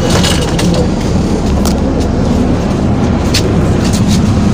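Metro bus heard from inside its cabin while riding: a steady, loud low rumble with a few short rattles and clicks.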